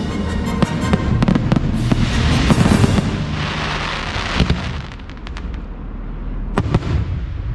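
Aerial firework shells bursting in quick succession, with a dense crackling spell about halfway through. It grows quieter for a moment, then one sharp report comes near the end. Music plays along with the show.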